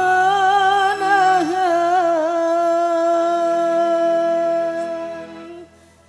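A woman singing one long, unaccompanied held note with a slight waver, in the style of a qasidah vocal opening. The note stops about five and a half seconds in.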